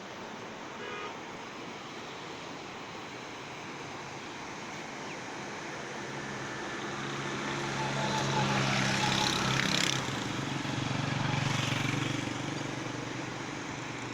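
A motor vehicle passing close by: its engine grows louder from about halfway through, peaks, swells once more and fades, over a steady rushing background noise.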